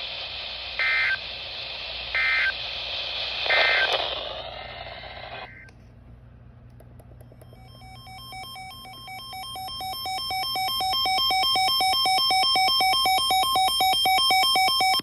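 Three short warbling bursts of EAS end-of-message data tones, about a second apart, over steady radio hiss, marking the end of the weather warning. The hiss then stops, and a fast-pulsing electronic tone in several pitches fades in, grows louder and cuts off suddenly.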